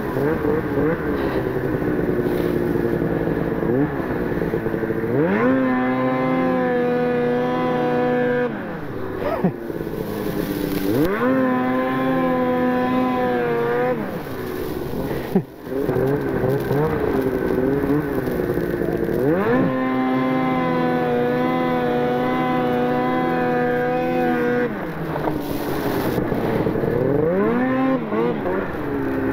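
Snowmobile engine running under the rider, the pitch sweeping up and then holding a steady high note as it is throttled up, three times, and dropping back to a lower, wavering pitch in between.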